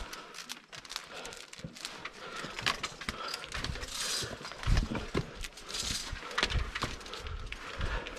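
Scrambling on a chained rock section: a fixed steel chain clinking and knocking against the rock as it is gripped, with scuffs and a few heavier thuds of steps on the rock.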